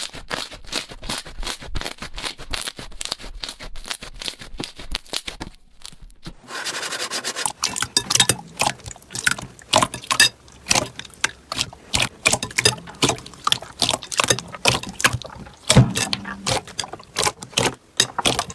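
Slime being pressed and squeezed by hand, with dense crackling and popping clicks. After a brief pause about six seconds in, the clicks come louder and more spaced.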